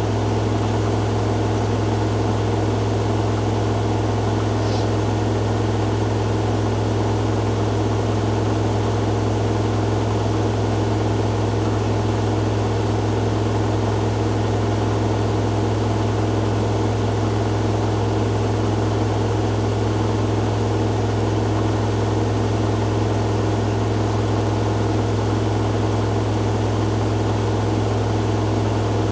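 Hoover Dynamic Next DXA610IW3 washing machine in its spin cycle, the drum spinning at a steady speed with a steady deep hum and fainter higher tones above it.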